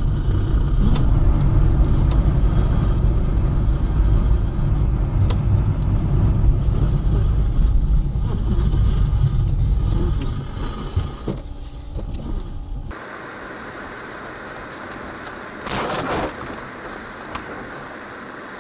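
Vehicle road noise: a loud, steady low rumble that stops abruptly after about thirteen seconds. A quieter hum follows, with one brief noisy burst a few seconds later.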